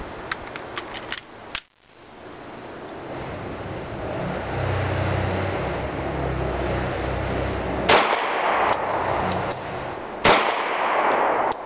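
Single shots from an FN FNX-45 .45 ACP pistol fired slowly. A sharp crack about a second and a half in makes the recording drop out for a moment. Two louder shots about two and a half seconds apart follow near the end, each trailing off in a short echo.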